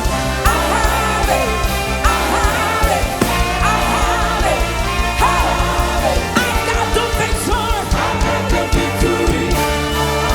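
Band music with a sliding, wavering sung melody over sustained bass notes and a steady beat.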